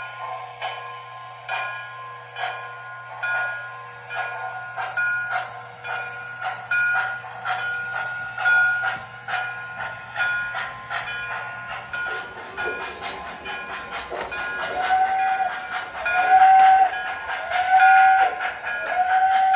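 O gauge model steam locomotive's electronic sound system playing steady chuffing with a bell ringing, then a series of whistle blasts from about fifteen seconds in, the loudest part.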